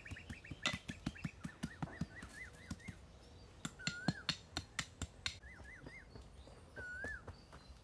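A bird calling in short whistled notes that rise and fall, a quick run of them at first and then single phrases every second or two, over a series of sharp, irregular knocks like wood being struck or chopped. The knocks are the loudest sounds and fall in two bursts, early and around the middle.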